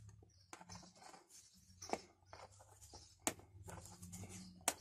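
Hands handling a roll of black electrical tape and a multimeter's test leads: faint scratchy rustling with three sharp clicks, about two seconds in, a second later and near the end.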